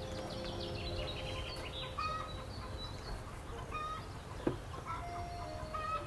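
Chickens clucking, with short calls repeating about every two seconds. A single sharp click comes about four and a half seconds in.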